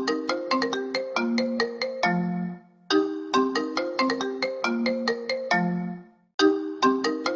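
iPhone ringtone playing: a short melody of quick, bright notes ending on a lower held note. It repeats about every three and a half seconds, with a brief gap between repeats.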